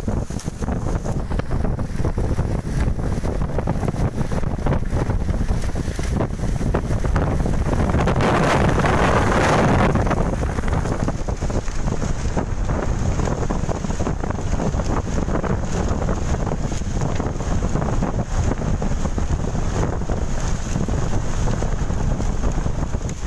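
Strong wind buffeting the microphone: a constant low, rumbling rush that swells into a stronger gust about eight seconds in, then settles back.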